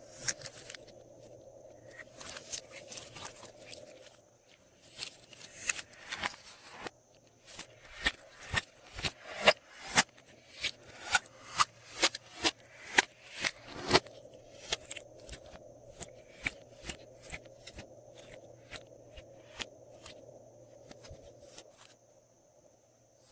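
Glossy slime being squeezed and pressed by hand, giving a run of sharp pops and clicks, about two a second through the middle, with softer crackling before and after.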